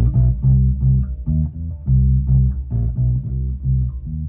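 Electric bass guitar played through a Harman Kardon HK595 subwoofer cabinet refitted with a TPA3116 amplifier board, testing whether the rebuilt box can handle bass guitar: a run of plucked bass notes in a repeating pattern.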